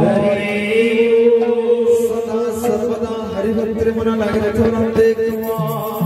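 Baithaki kirtan music: devotional chanted singing over steady held harmonium notes and drum strokes, with a voice sliding up into a sung line at the start.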